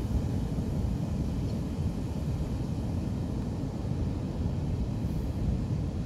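Steady low rumble of wind buffeting the microphone, over the wash of surf breaking on the shore.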